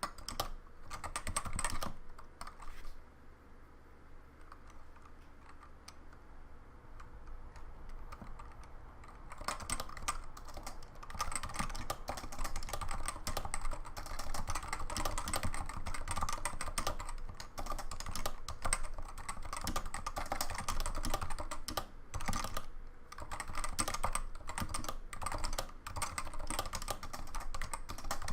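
Typing on a CoolerMaster Novatouch TKL keyboard with Topre electrostatic capacitive switches and ABS doubleshot keycaps: quick, dense key strokes that thin out to a few taps for several seconds about three seconds in, then pick up into steady continuous typing.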